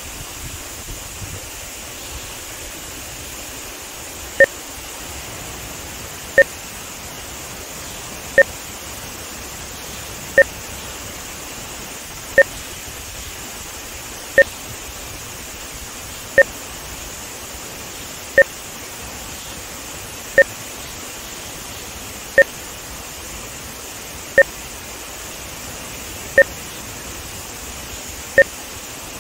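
Short two-tone test beeps, like a telephone keypad tone, one every two seconds from about four seconds in, over a steady rush of water from a dam spillway on the rapids. The beeps are audio sync markers for measuring audio–video timing.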